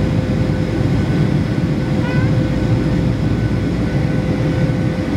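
Boeing 757-200 cabin noise during the climb after takeoff: the jet engines and airflow make a steady roar, with a thin steady tone running under it.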